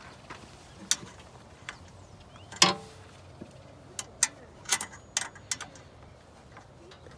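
Irregular sharp clicks and clinks of hand tools and intake parts being handled, a cluster of them between about four and five and a half seconds in, the loudest one about two and a half seconds in.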